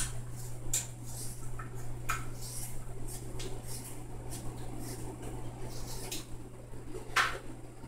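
Scissors snipping, trimming the edge of the rawhide backing glued onto a yew bow: a scattering of short, sharp snips, with one louder snip about seven seconds in, over a steady low hum.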